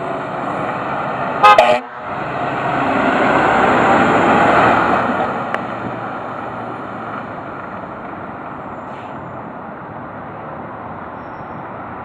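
A fire engine's air horn gives one short, very loud blast about a second and a half in. The pumper's engine then swells and fades as the truck pulls away.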